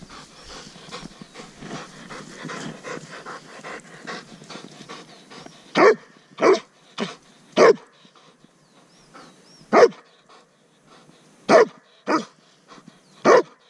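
Weimaraner panting hard, then barking on command in about seven single loud barks a second or two apart, starting about six seconds in: a tracking dog giving tongue at the end of the trail.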